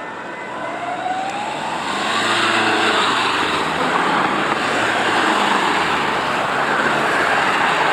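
Motor vehicle passing close by. Engine and tyre noise swell over about two seconds and stay loud, and the engine's pitch drops as it goes past.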